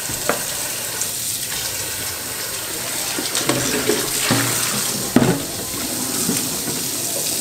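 Kitchen tap running steadily into a stainless steel sink while a large pot is scrubbed with a sponge under the stream, with a few knocks as the pot is handled in the sink.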